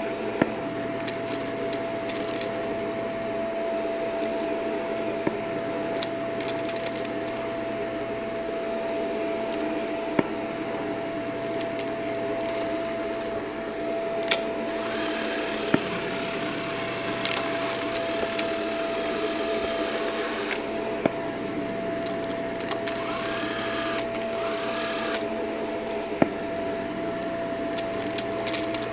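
Vacuum cleaner running steadily with a constant whine, with sharp clicks and crackles scattered through as crunchy debris is sucked up.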